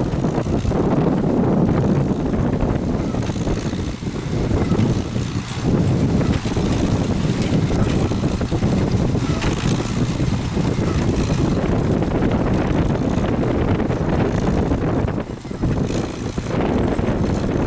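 1954 McCormick Deering 55-T hay baler running steadily while baling alfalfa, along with the tractor engine pulling it, with wind buffeting the microphone.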